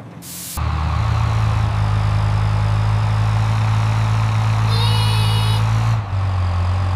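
Engine sound effect of a heavy construction vehicle, a steady low running drone. A short hiss comes right at the start, and a brief high warbling tone sounds about five seconds in.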